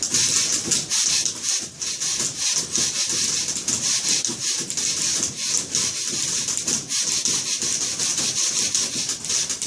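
Several manual typewriters typed hard and fast together, a dense, continuous clatter of key strikes.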